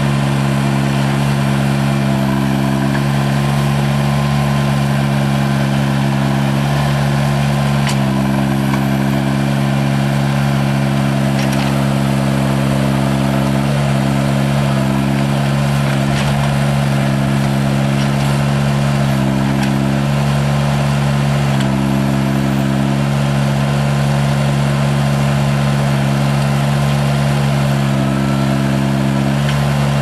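Terramite T9 backhoe loader's Perkins diesel engine running at a steady speed, with a few light knocks over the engine sound.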